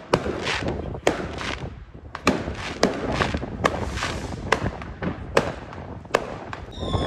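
Aerial fireworks and rockets bursting overhead: a string of sharp bangs, about one a second, with noise between them.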